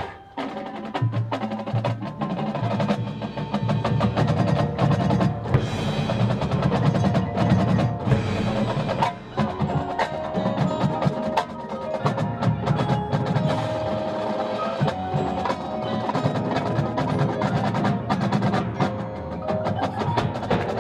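High school marching band's percussion section playing a busy rhythmic passage: rapid drum strokes with pitched mallet percussion ringing over them.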